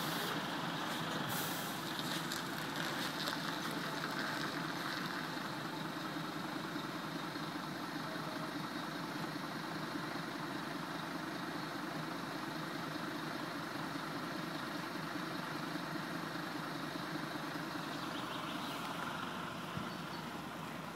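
Rear-loading garbage truck's diesel engine running steadily as the truck moves slowly past, with a brief hiss about a second in.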